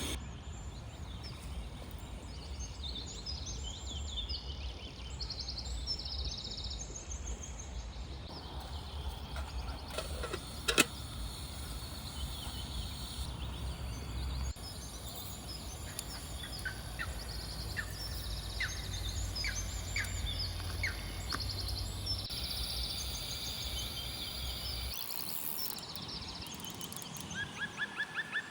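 Small birds chirping and trilling over a low, steady rumble of wind, with a single sharp click about eleven seconds in.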